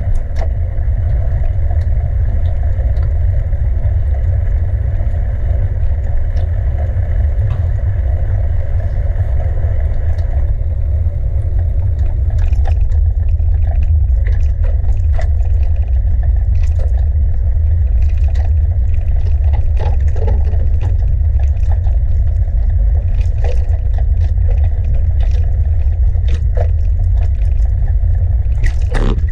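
Riding noise of a bicycle on city streets: a steady low rumble throughout, with a hiss that drops away about ten seconds in, then scattered clicks and rattles as the bike goes over bumps.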